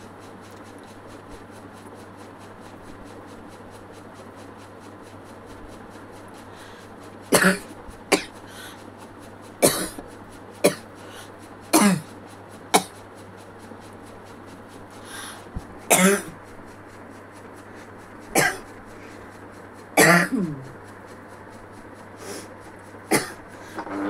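A person coughing: after several seconds of only a low hum, a string of about ten short, sharp coughs comes one to two seconds apart. The speaker says the coughing comes from a real cold and is hard enough to make her eyes water.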